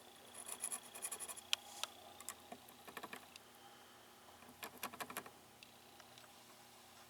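Faint crackling in three short bursts of rapid clicks from an overvolted, red-hot 50C5 audio output tube with a heater-to-cathode short.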